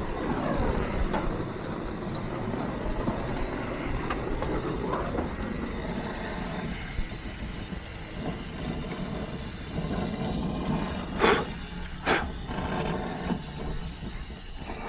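Oxy-acetylene brazing torch burning steadily with its acetylene kept turned down for a soft flame, heating copper refrigerant joints on a heat pump reversing valve. A few sharp clicks come about eleven to thirteen seconds in.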